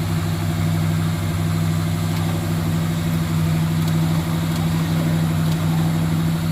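A vehicle engine idling steadily, with an even, unchanging note and no revving.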